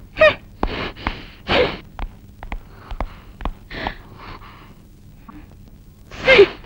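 A woman's sharp breaths and gasps, then quieter scattered clicks and smacks as a woman eats with her fingers, and a short vocal sound near the end.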